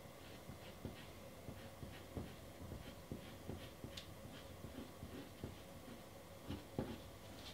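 Faint, irregular short scratches and dabs of a white Faber-Castell pastel stick working on pastel mat, over a low steady hum.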